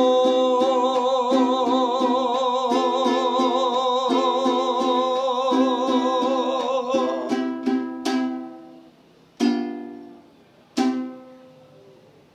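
A man singing the song's last note, held long with vibrato, over steady strumming on a ukulele; the voice stops about seven seconds in. Closing strums follow, then two single final strums, each left to ring and die away, ending the song.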